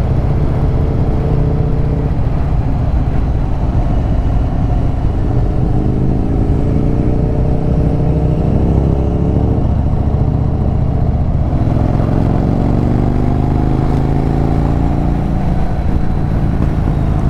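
Yamaha Virago 1100's V-twin engine accelerating at speed. Its pitch climbs, drops with a gear change about eleven seconds in, then climbs again, all under heavy wind rumble on the microphone.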